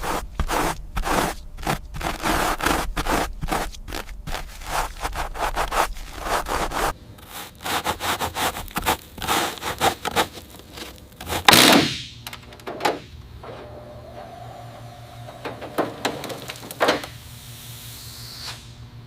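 Rapid back-and-forth scraping and rubbing strokes, like hand work on a surface, thinning out after about ten seconds, with one louder stroke around the middle and a few scattered strokes afterwards.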